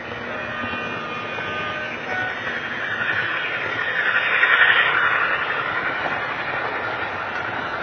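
Model railway train running along the track and passing close by. The rumble of wheels and motor builds to its loudest about four and a half seconds in, then eases off.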